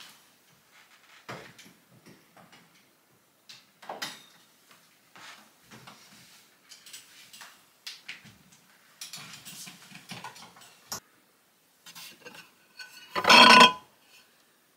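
Scattered light knocks, clicks and rustles of objects being handled, then a loud scrape lasting about half a second near the end as a slate board is slid off a wooden shelf.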